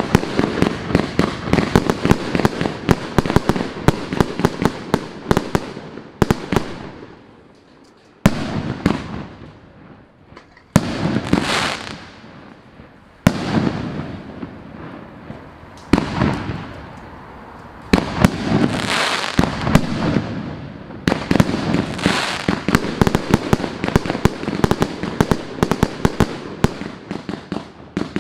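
FC115MK firework cake firing: rapid volleys of shots with crackling, in several bursts separated by brief lulls about eight and twelve seconds in.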